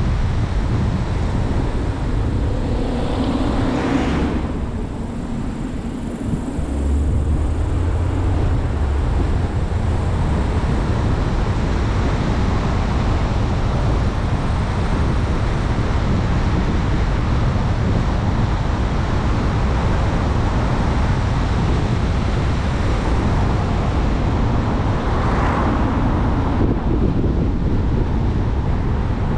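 Steady road and wind noise of a car driving along a mountain road, with a brief swell about four seconds in and another near the end, as of vehicles passing.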